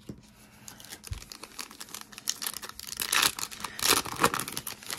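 A foil Panini Contenders football card pack being crinkled and torn open by hand, the crackling growing loudest about three to four seconds in.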